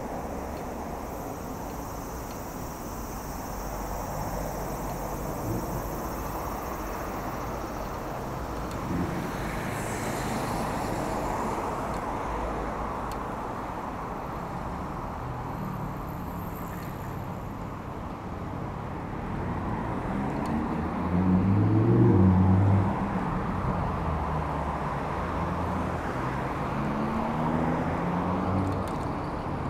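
Road traffic on a wide suburban road: a steady rush of tyre and road noise, with car engines going past, their pitch rising as they speed up. The loudest car passes about two-thirds of the way through.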